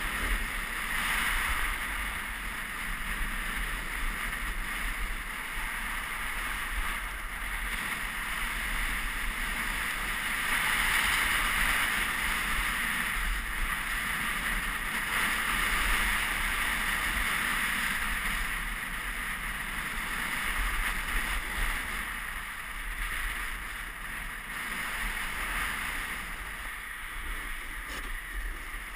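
Snowboard sliding and carving over groomed snow: a continuous scraping hiss that swells and eases every few seconds, with wind rumbling on the GoPro's microphone underneath.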